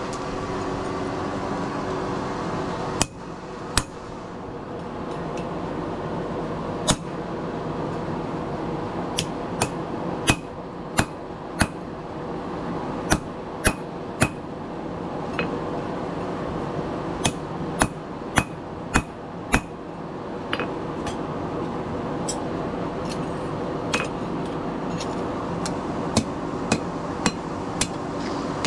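Blacksmith's hand hammer striking a hot steel knife blade, held in tongs, on an anvil: sharp ringing blows at irregular spacing, sometimes two or three close together, with pauses between. A steady low hum runs underneath.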